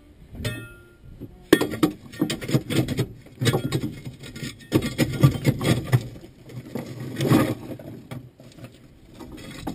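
Marshall steam roller on the move, its motion and gearing clanking and knocking in uneven clusters over a deep rumble, with short lulls between.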